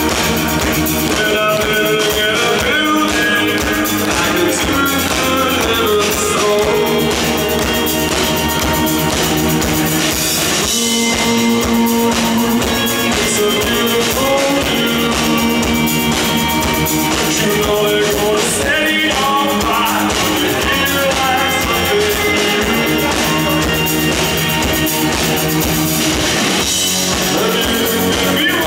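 Live rock band playing a song: electric guitar, bass guitar and drum kit, with a male lead vocalist singing over them.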